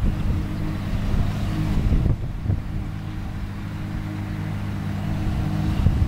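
A John Deere tractor's diesel engine and a New Holland FP230 forage harvester running steadily under load as the harvester picks up and chops a windrow of hay, a constant even drone.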